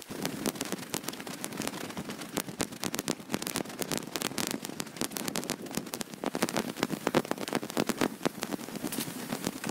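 Dense, irregular crackling and rustling, many small clicks a second, from walking an overgrown dirt path with a handheld camera.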